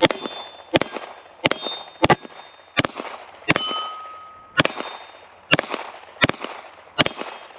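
A Glock 17 9mm pistol fired in a steady string of about ten shots, roughly three every two seconds. Each shot is followed by a short metallic clang and ring.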